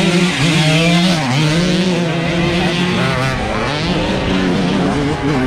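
125cc two-stroke motocross bikes racing, the loudest engine's pitch rising and dropping again and again as the riders work the throttle through the turns.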